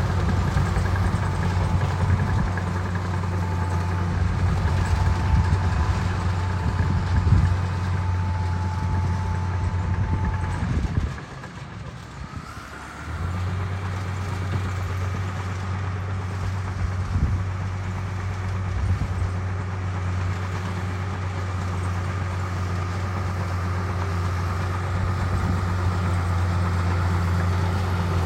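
Heavy diesel engine of road-construction machinery running steadily with a deep low hum. It drops away abruptly for about two seconds partway through, then comes back at the same steady level.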